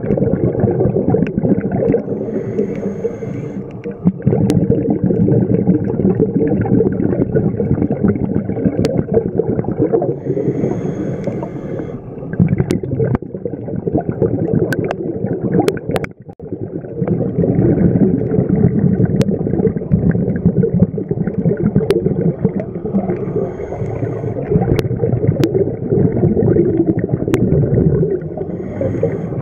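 Scuba regulator breathing heard underwater: long loud rushes of exhaled bubbles broken by brief lulls about four, twelve and sixteen seconds in, with scattered sharp clicks.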